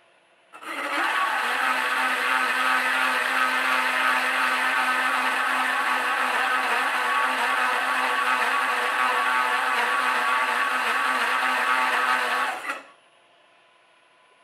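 Carbide-tipped hole saw cutting into the hub of a grinder guard: a loud, steady cutting noise with a steady pitch running through it. It starts about half a second in and stops abruptly near the end as the saw is lifted out of the cut.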